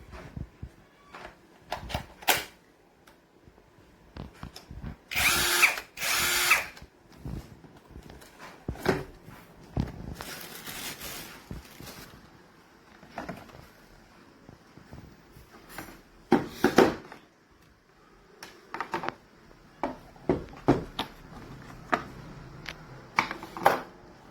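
Cordless 21 V drill-driver run in two short bursts about five seconds in, with a fainter run about ten seconds in. Clicks and knocks of the tool being handled come and go around them.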